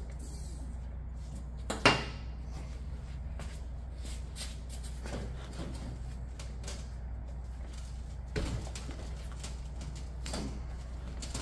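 Handling knocks from the front fork tubes and wheel of a three-wheeler being worked back up into the fork clamps. There is one sharp knock about two seconds in, then a few lighter knocks and faint clicks near the end, over a steady low hum.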